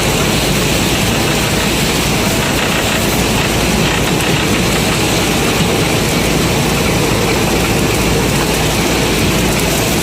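Combine harvester running steadily: a loud, even engine drone with a wide hiss of machinery over it.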